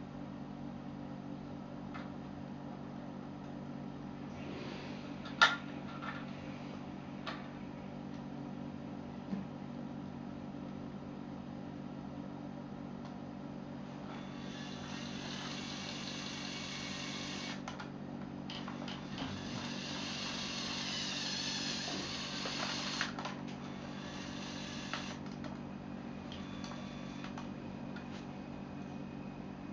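A sharp plastic click about five seconds in, then a small electric motor of a Lego Technic truck whirring for about ten seconds with brief stops, over a steady low hum.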